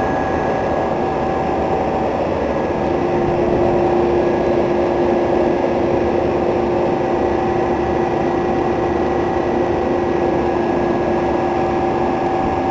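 Commercial refrigeration condensing units, Copeland Copelametic three-phase compressors with their condenser fans, running together: a loud, even machine hum with a few steady tones over it. Another steady tone joins about three seconds in.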